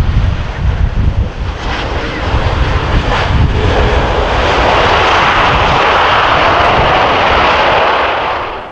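Boeing 737 MAX 8's CFM LEAP-1B jet engines during the landing roll, with wind gusting on the microphone. About four seconds in the engine roar grows much louder and holds steady, typical of reverse thrust braking the aircraft after touchdown, then it cuts off near the end.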